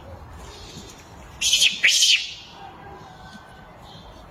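Two short, shrill animal calls in quick succession about a second and a half in.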